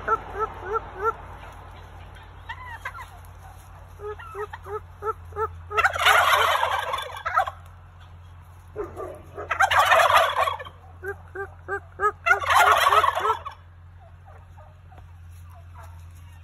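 Wild turkey toms gobbling three times, each gobble a loud rattle lasting just over a second. Between the gobbles come runs of short repeated calls, about four a second.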